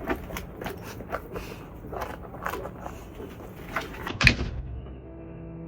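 A string of irregular clicks and knocks, the loudest one about four seconds in, then soft background music with held tones coming in near the end.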